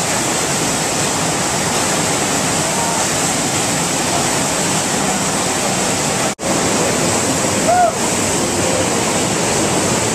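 Steady rush of pumped water pouring over an artificial sheet-wave ride. The sound cuts out for an instant about six seconds in, and a brief rising-and-falling tone comes a little after.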